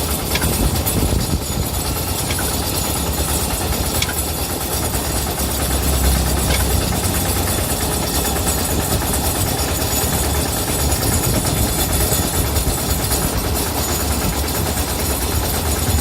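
An engine running steadily with a low rumble, with a few faint clicks over it.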